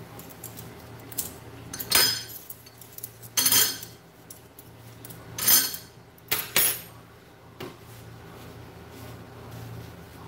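Metal spoons clinking and clattering together in several short bursts as they are handled and wiped with a cloth.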